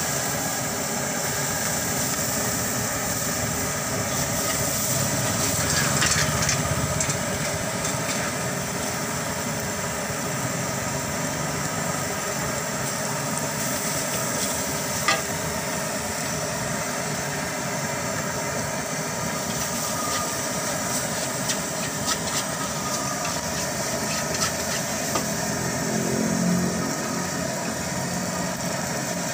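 Fried rice sizzling in a steel wok over a gas burner as it is stir-fried, a steady hiss throughout, with occasional clinks and scrapes of the metal spatula against the wok and one sharper knock about halfway through.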